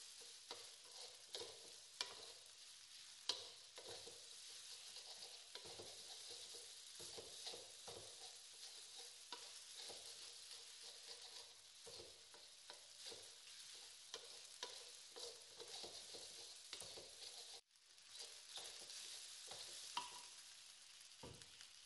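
Fried rice sizzling steadily in a metal wok while a wooden spatula stirs and scrapes it, with sharp clacks of the spatula against the wok, the loudest about two and three seconds in and again near the end.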